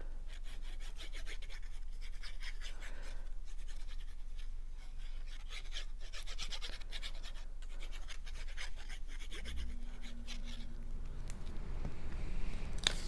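Paper being rubbed in quick, rhythmic scratchy strokes, in several separate runs. A low hum comes in about nine and a half seconds in, and there is a sharp click near the end.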